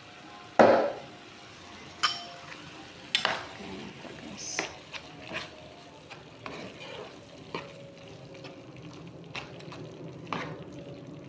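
A spoon stirring a thick tomato sauce in a non-stick frying pan, with irregular knocks and scrapes against the pan. The loudest knock comes about half a second in. The sauce sizzles faintly underneath.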